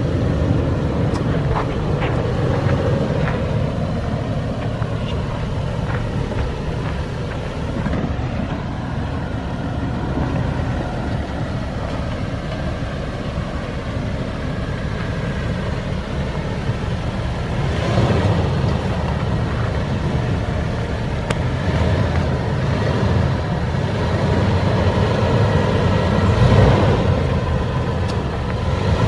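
2011 Toyota 4Runner's 4.0-litre V6 running at low speed as the truck crawls over rocky off-road ground, with a few short knocks and clicks and swells of engine and tyre noise.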